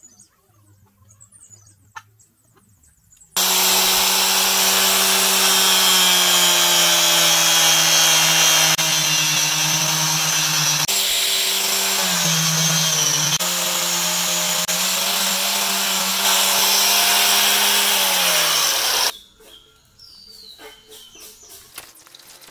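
Electric angle grinder switched on and cutting into the metal body of an oil spray gun. It runs for about fifteen seconds, and its motor pitch dips briefly midway under load. Then it is switched off and winds down.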